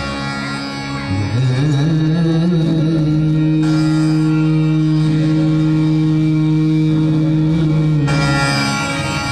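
Live Indian devotional music: a single long note held steady for several seconds, starting about a second in and easing off near the end, over the accompaniment.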